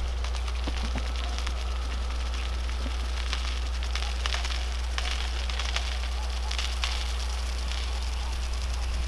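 Rotating field sprinklers spraying water over a planted chard bed: a steady hiss of spray with an irregular crackle of droplets spattering on leaves and soil, over a steady low rumble.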